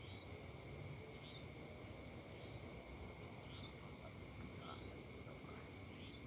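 A steady high drone of insects, crickets by their sound, with short rising chirps about once a second over a low background rumble.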